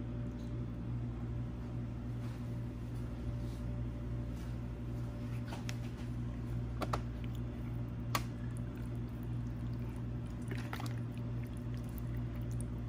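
A silicone spatula working a whole raw chicken around in a bowl of liquid marinade: a few soft wet squishes and clicks against the bowl, over a steady low hum.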